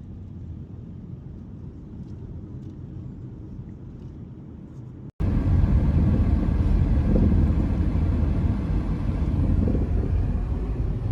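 Car driving, heard from inside: a steady low rumble of engine and road noise. About five seconds in, the sound cuts off abruptly and comes back as a much louder rumble.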